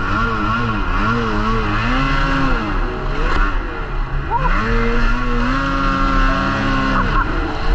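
Snowmobile engine revving up and down in quick throttle swings, then climbing in pitch about four seconds in, holding high for a couple of seconds, and dropping back near the end.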